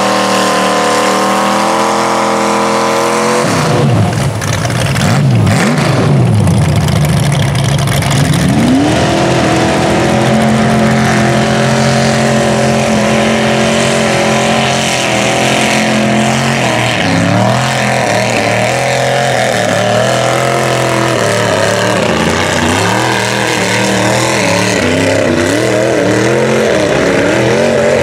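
Chevrolet and Ford mud-bog trucks' engines at high revs as they plough through a mud pit one after another, the pitch rising and falling as the throttle is worked, over the rushing hiss of thrown mud and water.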